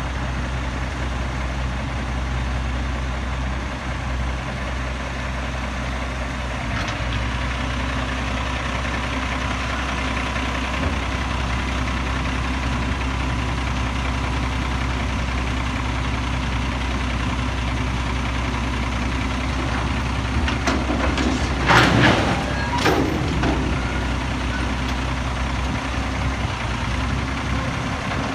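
Autocar Xpeditor front-loader garbage truck running, its engine picking up about seven seconds in as the hydraulic forks raise a container over the cab. A few loud bangs come about 21 to 23 seconds in as the container is emptied into the hopper.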